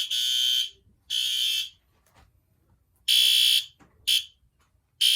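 System Sensor SpectrAlert Advance fire-alarm horn sounding in a high buzzing tone, in blasts of about half a second to a second with uneven gaps between them, plus one very short blip.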